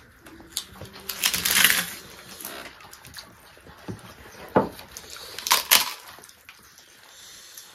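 Close-up eating sounds: fingers squishing and mixing rice and curry on a banana leaf, with chewing and lip smacks. A loud crackly noise comes about a second in, and a few sharp smacks follow later.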